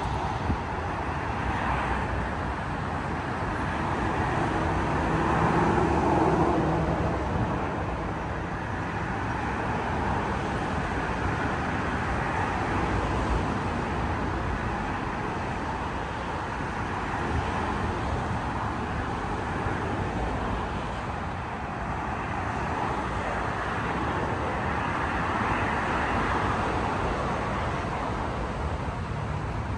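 Steady motor traffic on the Brooklyn Bridge roadway, a continuous rush of cars that swells as vehicles pass about six seconds in and again near the end.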